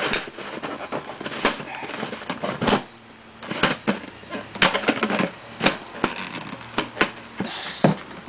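Plastic parts of a Hoover vacuum cleaner clicking and knocking as a part is pushed and fitted back on, a run of irregular sharp clicks with a short lull partway through.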